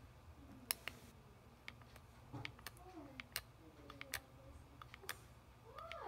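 Sharp plastic clicks, about ten of them at irregular intervals, from an analog thumb joystick module being pushed and pressed to pick letters on a homemade text entry device.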